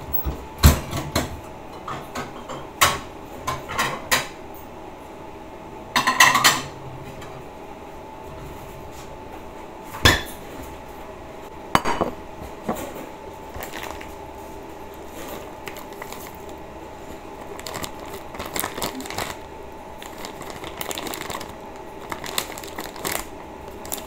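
Kitchenware being handled: scattered knocks and clinks of a glass bowl and utensils, the loudest about 1 s, 6 s and 10 s in, over a steady faint hum.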